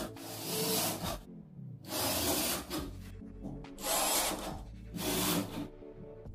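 Cordless drill-driver driving screws through a perforated metal corner bead into gypsum board, in four short bursts of under a second each.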